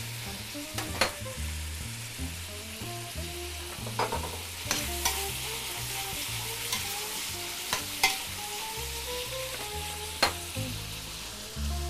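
Cubes of meat sizzling as they are seared in a stainless steel stockpot, stirred with metal tongs that scrape and knock sharply against the pot several times.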